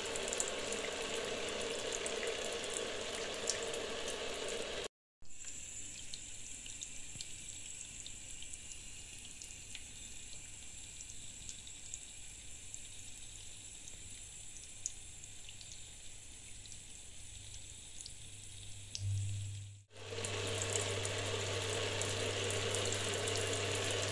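Shower water spraying onto plastic cosmetic tubes and a jar, a steady hiss broken by two cuts; the middle stretch is quieter, and a low hum comes in near the end.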